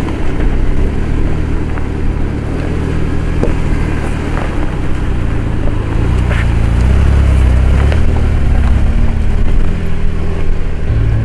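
Jeep Wrangler engine running at crawling speed over rock, getting louder about six seconds in as the Jeep climbs and passes close by.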